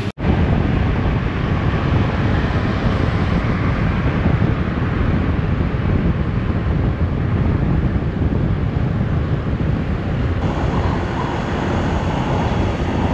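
Wind buffeting the microphone on a moving motorbike: a loud, steady, low rumbling rush, with the bike's running sound beneath it.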